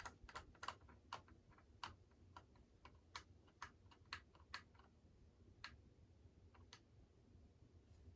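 Faint, irregular light clicks, about a dozen in the first five seconds and only two more after, over a low steady hum.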